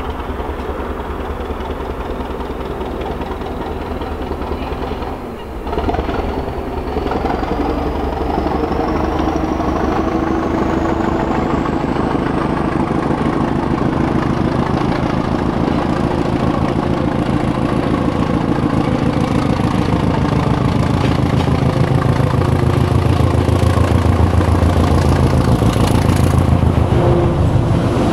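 Class 205 'Thumper' diesel-electric multiple unit's English Electric four-cylinder diesel engine working hard as the unit pulls away and approaches, with the throbbing low beat the class is nicknamed for, growing louder throughout. A faint high whine climbs slowly in pitch over the first half and then holds steady.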